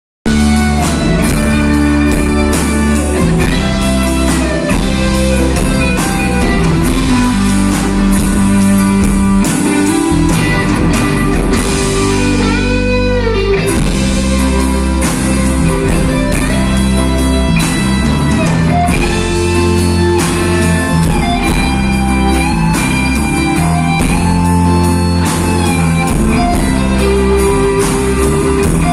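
Rock band playing, with an electric guitar lead over bass and drums; the guitar holds long notes and bends one up and down about halfway through.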